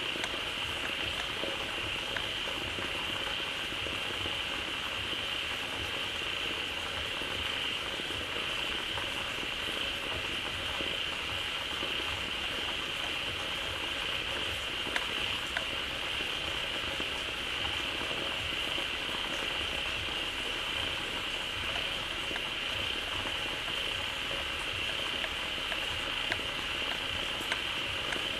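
Dense chorus of many frogs calling together at a pond, a steady mass of overlapping calls with a constant high-pitched band running through it.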